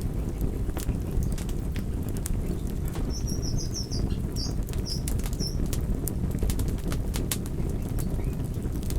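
Wood fire crackling in a fireplace: frequent sharp pops and snaps over a steady low rumble of the burning logs.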